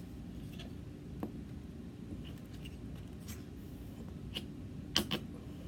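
Small handling sounds from a lotion bottle being picked up, opened and squeezed: faint scattered taps and clicks, with two sharper clicks close together about five seconds in.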